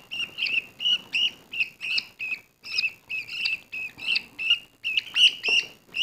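Budgerigar chicks giving rapid, repeated high chirps, about four a second without pause: the rhythmic food-begging calls of hand-fed baby budgies.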